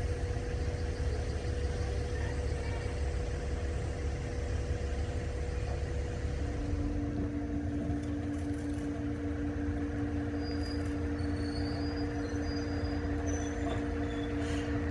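Diesel railcar engine running steadily, a low rumble with a steady hum; a second, lower hum tone grows stronger about six seconds in.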